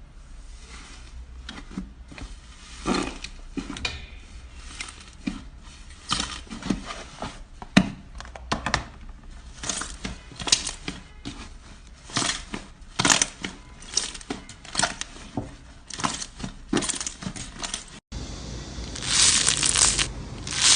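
Slime being squeezed and pressed by hand, giving irregular sticky clicks, pops and crackles. After a cut near the end, a denser, louder crackling takes over.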